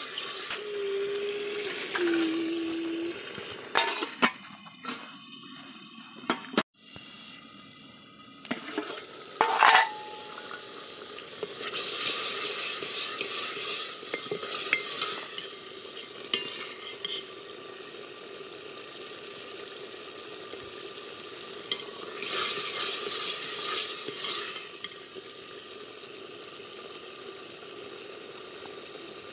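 A steel ladle stirring a simmering curry in a stainless steel pot, with a few sharp clinks of metal on metal and two longer stretches of stirring in the second half.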